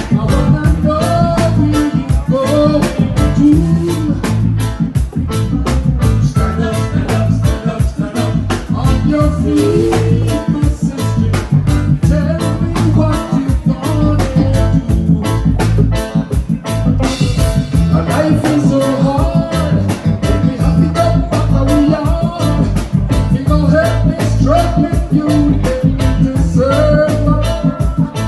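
Live band playing an upbeat ska-reggae song with a steady, driving beat, a repeating bass line and guitar, with a voice singing over it.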